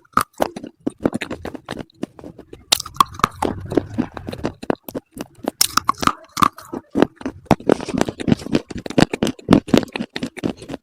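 Close-miked crunching and chewing of hard edible slate bars: a dense run of sharp, irregular crunches as pieces are bitten and ground between the teeth.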